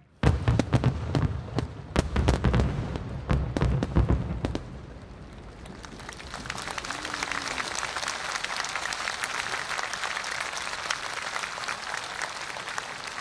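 A rapid volley of large aerial firework shells bursting, heavy booms packed close together for about four and a half seconds, then the crowd applauding.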